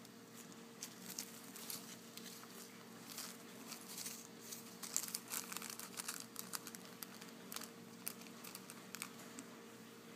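Small clear plastic zip bag of glitter shapes crinkling as fingers handle and press it: irregular sharp crackles starting about a second in, over a faint steady hum.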